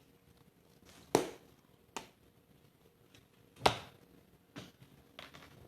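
Slime being pressed and stretched by hand, giving three sharp pops about a second in, at two seconds and near four seconds, the last the loudest, then a couple of softer ones.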